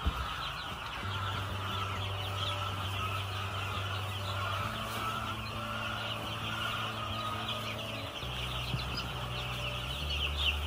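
A pen full of young broiler chicks peeping continuously, a dense chorus of many overlapping high cheeps, over a low steady hum.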